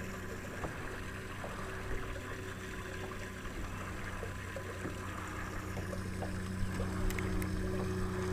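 Boat's electric trolling motor humming steadily, its hum growing louder about six seconds in, over light splashing of water, with a couple of light clicks near the end.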